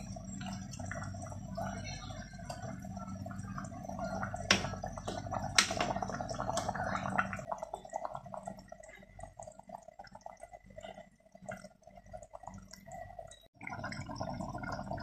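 Beef stew bubbling in an aluminium pressure cooker as a metal ladle stirs it, the ladle knocking sharply against the pot twice, about four and a half and five and a half seconds in. A low hum runs underneath for roughly the first half.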